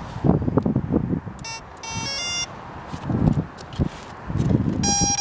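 Short electronic beeps, a quick run of differently pitched tones, then a longer steady beep near the end, from the model plane's radio-control electronics as it is powered up and armed. Gusts of wind buffet the microphone throughout.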